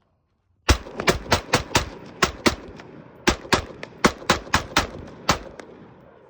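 AR-15 pistol with a 10.5-inch barrel fired rapidly: about fifteen shots in two quick strings with a short pause between, each crack trailed by a brief echo.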